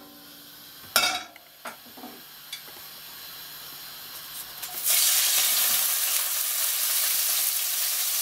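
Pieces of white fish going into hot olive oil in a wok and sizzling, the sizzle starting suddenly about five seconds in and then holding steady. Before that come a few light knocks of wooden chopsticks at the wok.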